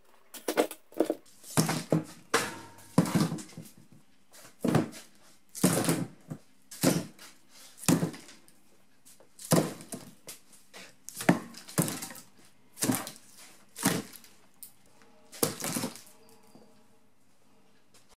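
Pear-tree branch logs set down and stacked on a wooden work table: a run of about fifteen sharp wooden knocks and clunks at irregular intervals, roughly one a second, stopping near the end.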